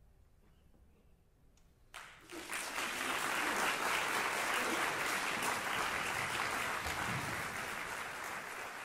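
A brief hush, then audience applause breaks out suddenly about two seconds in and carries on, loud and steady, easing slightly near the end.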